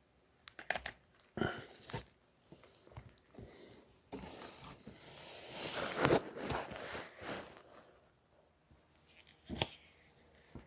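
Handling noise: irregular rustling and scraping with scattered clicks, building to a louder rustle about six seconds in, and a single sharp knock near the end.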